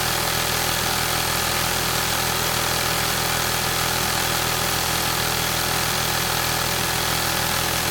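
Industrial sewing machine running steadily at speed, a continuous, even mechanical clatter.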